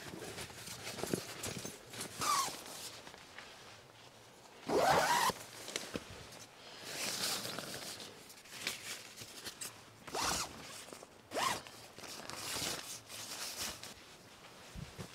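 A zipper pulled in several quick strokes, each a short rising zip, the longest and loudest about five seconds in. Quieter fabric rustling from bedding being handled runs between the strokes.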